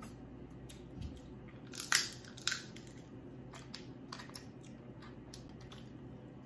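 Crab leg shells cracking and crunching as they are broken apart by hand: a run of small crackling clicks, with two sharper cracks about two seconds in.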